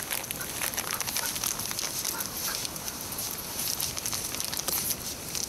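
Footsteps crunching and scuffing on a gritty asphalt lane as people walk a dog on a leash: a dense, irregular run of small clicks over a steady high hiss.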